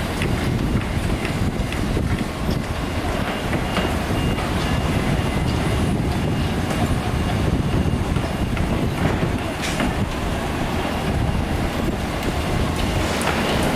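Heavy construction machinery running: a steady low rumble with a few scattered metallic clanks.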